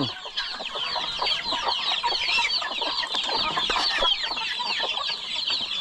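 A flock of chickens: many chicks peeping in a dense, continuous high-pitched chatter, with hens clucking among them.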